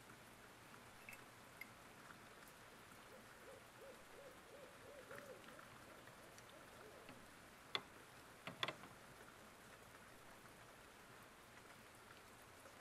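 Near silence: room tone, with a faint wavering hoot-like tone about a quarter of the way in and a few small clicks a little past halfway.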